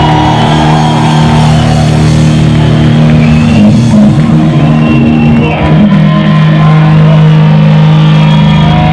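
A live heavy metal band playing loud, with distorted electric guitars holding long low notes.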